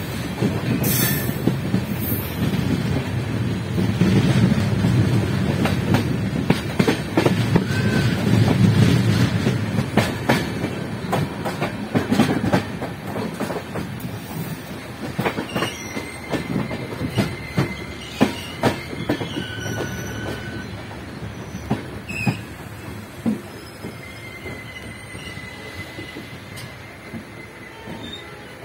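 Coach wheels running over rail joints and points, heard close from the coach doorway: a heavy rumble with a fast irregular clatter of clicks, loudest in the first ten seconds and fading as the train slows into the station. In the second half, thin high wheel squeals come and go over the quieter clatter.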